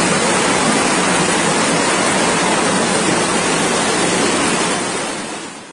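Torrential storm rain and rushing floodwater, a steady loud rushing that fades out over the last second.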